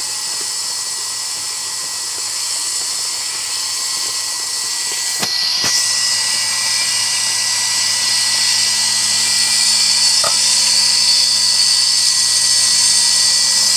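Cotton candy machine's belt-driven spinner shaft running on its bearing with a steady, high whine. It is running smoothly, its bearing run in. Two short knocks come about five seconds in, and a low hum joins after them.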